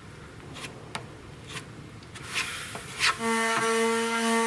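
A few short scraping strokes of a putty knife spreading wood filler over screw heads in MDF. A little after three seconds in, a power tool's motor starts and runs with a steady whine.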